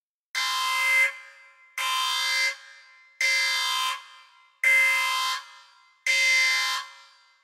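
A horn or electronic alarm sounding in five identical blasts, each under a second long and about a second and a half apart, with a steady pitch: the signal counting down to the start of an obstacle race.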